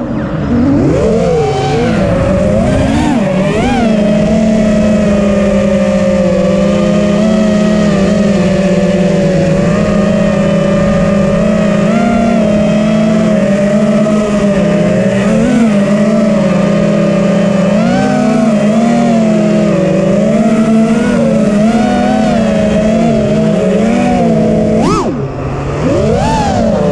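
FPV racing quadcopter's brushless motors and propellers whining steadily as it flies, the pitch wavering with the throttle, with a few quick rising-and-falling swoops near the start and again near the end.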